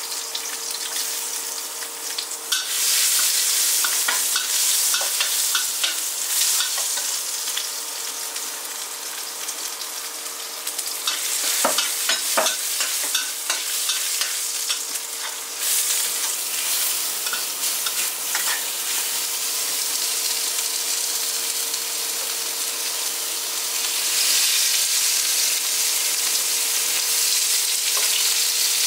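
Winter bamboo shoots and cured pork being stir-fried: a steady sizzle of hot oil with scattered clicks and scrapes of a spatula stirring the food. The sizzle swells about two seconds in and again near the end, with a few harder knocks around the middle.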